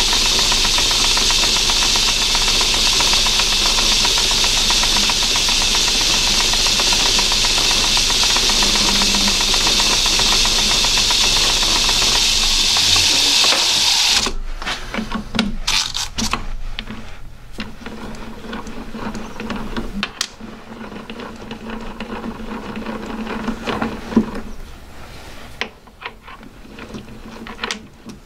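Myford ML7 lathe turning an aluminium pulley, with a steady loud hiss from the tool cutting the metal. About halfway the cutting noise stops suddenly, leaving the quieter hum of the running lathe and a few clicks and knocks.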